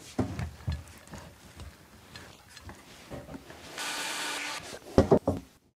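Hands and a clamp rubbing and lightly knocking on a polyethylene tank wall, then a short hiss from a hot-air plastic welding gun about four seconds in as a tack weld is set on the corner. A few sharp knocks follow near the end.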